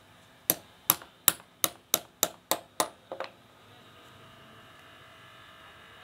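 Ball-peen hammer striking the metal fastener on the joint of a flat sawmill drive belt: eight sharp, ringing blows at about three a second, quickening slightly, then two lighter taps.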